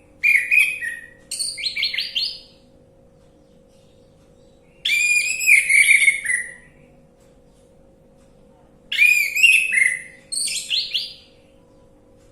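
Orange-headed thrush singing: three bouts of rapid, varied whistled phrases with pauses of a few seconds between them. A faint steady hum runs underneath.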